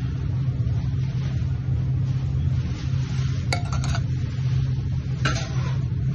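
Clinks of kitchen utensils against a porcelain plate while a dish is plated, a quick cluster about three and a half seconds in and another just after five seconds, over a steady low hum.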